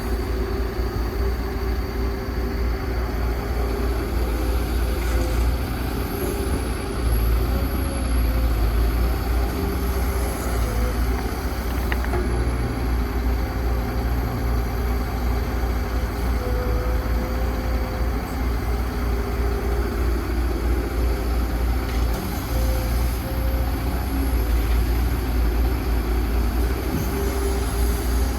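Large excavator's diesel engine running steadily with a heavy low rumble and a thin wavering whine above it.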